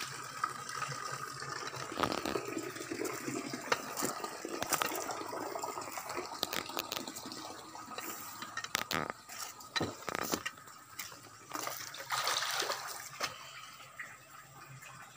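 Catfish thrashing and splashing at the surface of a crowded concrete pond: a continuous churning of water broken by many sharp, irregular splashes.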